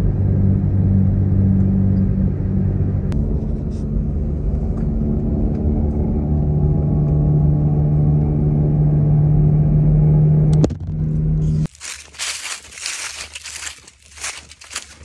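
Car driving, heard from inside the cabin: a steady low rumble whose pitch shifts a few times. About twelve seconds in it cuts off and footsteps crunch through dry fallen leaves.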